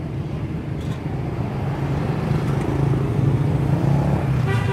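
A motor vehicle engine running with a steady low hum, growing louder over the first few seconds as it comes closer.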